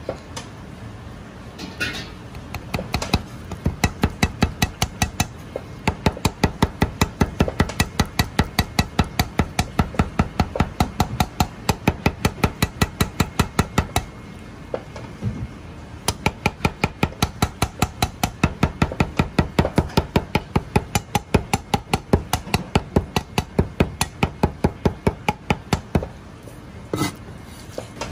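Chinese cleaver mincing soft pickled plum flesh on a plastic cutting board: a fast, even run of knocks, about four a second, that stops for a couple of seconds about halfway through and resumes.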